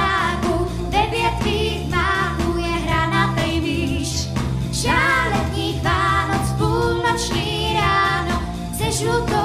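A young girl singing into a handheld microphone over instrumental backing music.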